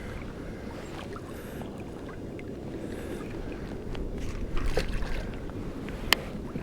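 Steady low wash of sea water against a plastic fishing kayak's hull, with a few light knocks and one sharp click about six seconds in.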